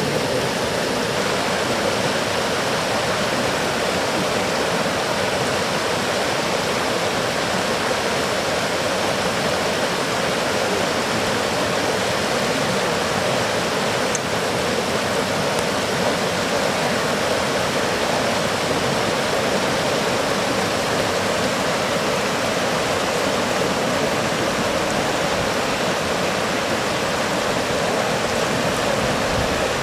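Steady rush of water pouring over a low weir and running through a shallow, rocky stream.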